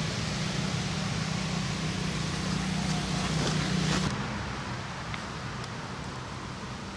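Motorbike traffic noise: a steady low engine hum with a general hiss. It cuts off suddenly about four seconds in, leaving a quieter steady hiss.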